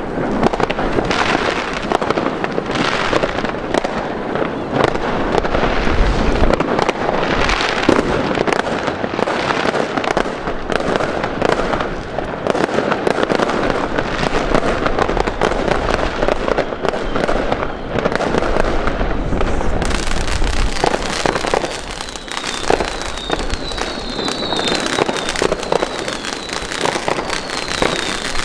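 Dense, continuous crackling and popping of fireworks: a ground fountain spraying sparks close by, amid many firecracker bangs and pops all around. A few short high whistles come in near the end.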